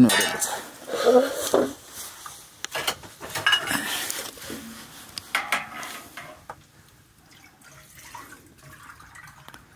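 Kitchen clatter: pots and dishes knocking and clinking with water splashing, and brief voices in the first half. Most of the clatter comes in the first six seconds, with only a few light clicks after that.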